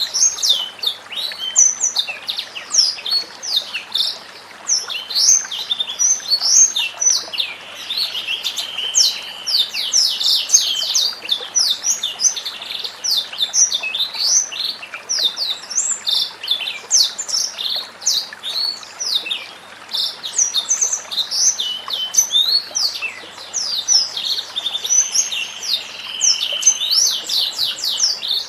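White-rumped shama (murai batu) singing a fast, unbroken stream of high chirps and whistled notes, over a steady background hiss.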